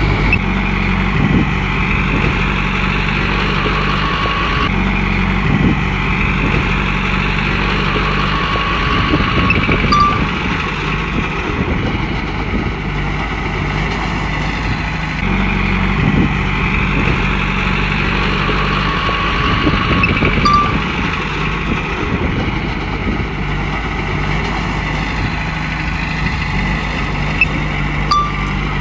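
Komatsu crawler bulldozer's diesel engine running steadily under work, with a higher whine that swells and fades every several seconds as the machine moves.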